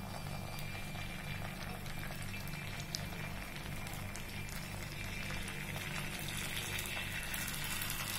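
Hot oil in the cavities of a kuzhi paniyaram pan sizzling steadily as idli batter is ladled in, with a low steady hum underneath.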